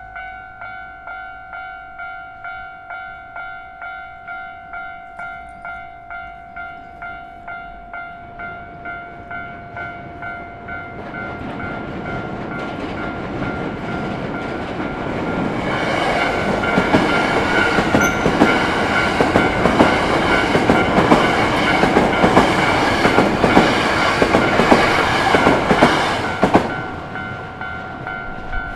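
Japanese level-crossing warning bell ringing, about two electronic strikes a second. A Hankyu train approaches and passes over the crossing, its wheels clattering over the rail joints for about ten seconds before the train noise stops abruptly near the end. The bell keeps ringing after the train has gone.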